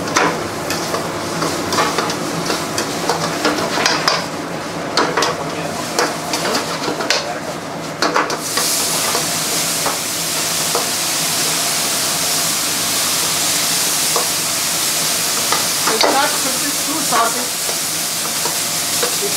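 Paneer Manchurian stir-fry being stirred with a metal spatula in a hot pan, the tool clicking and scraping against the metal; about eight seconds in a loud steady sizzling hiss starts and carries on.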